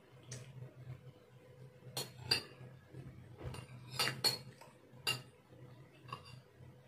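Metal spoon and fork clinking and scraping against a stainless steel serving tray as food is scooped, with a handful of sharp clinks, mostly in pairs about two and four seconds in.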